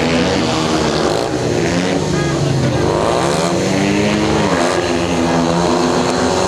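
Several speedway bike engines (500 cc single-cylinder, methanol-fuelled) running together near the start, revved up and down again and again, with their pitch falling and rising in overlapping waves.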